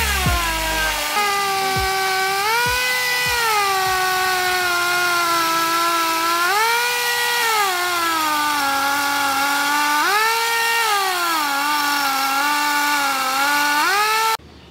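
Homemade chainsaw run by a compressed-air engine, cutting through a log. Its steady whine over a hiss sags in pitch as the chain bites into the wood and rises again each time it runs freer, about four times over, then cuts off suddenly near the end.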